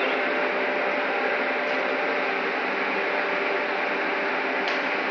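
Steady machinery drone and hiss with a faint low hum from a harbour crane working a lift over a ship's hold.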